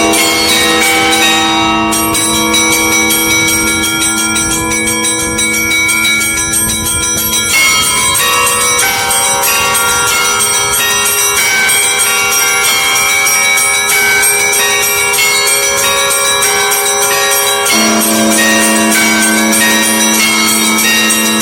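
Russian Orthodox church bells pealing together: quick, continuous strikes on smaller bells over the long hum of larger ones. The deep hum of a big bell dies out about two seconds in, and a heavy bell strikes again about eighteen seconds in.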